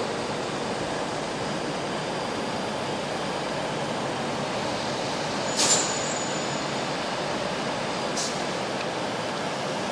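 Steady rumble of a passenger train rolling slowly along the track, heard from inside the carriage. A brief sharp squeal of wheel on rail comes about halfway through, the loudest moment, and a fainter one follows near the end.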